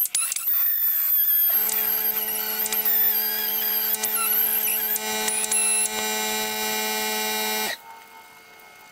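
Pneumatic straight die grinder with a burr bit running at high speed, grinding the rusty frame's body mount back to clean metal for welding; its thin high whine wavers as the burr bites. A steady lower hum joins about a second and a half in, and both cut off abruptly near the end.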